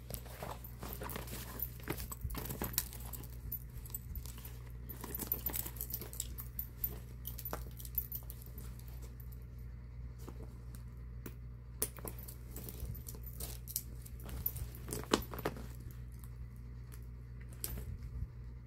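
Hands handling a denim tote bag and its crossbody strap: scattered light clicks and jingles of the metal clasps and hook rings, with brief fabric rustles, over a low steady hum.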